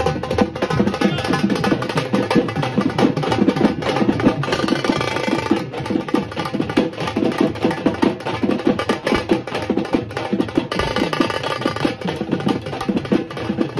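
Band music led by fast, steady drumming, with instruments playing over the beat and brighter passages about four and a half seconds in and again near the end.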